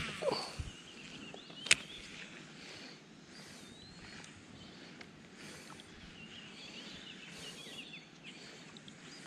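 Quiet river ambience with faint bird chirps, broken by a single sharp click a little under two seconds in.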